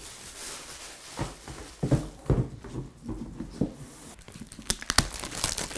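Tissue paper and plastic rustling as shoes are packed back into a cardboard box, then a few dull knocks and, near the end, sharp clicks as the box lid and box are handled on a wooden table.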